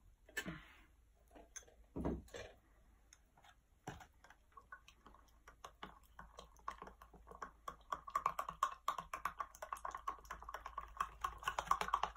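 A metal spoon stirring protein powder into water in a drinking glass, clinking rapidly against the glass, the clinks growing faster and louder over the second half. A few single knocks come in the first few seconds.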